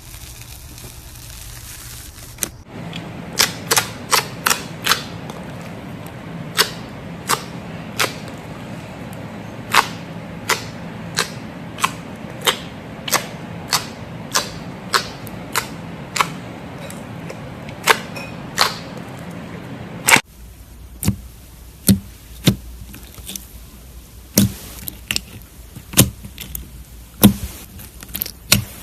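Slime being pressed and poked, its trapped air pockets popping with sharp, irregular clicks about one to two times a second.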